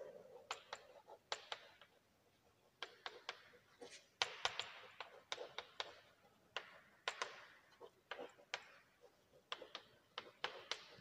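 Chalk writing on a blackboard, faint: a string of irregular sharp taps as the chalk meets the board, some drawn out into short scratchy strokes.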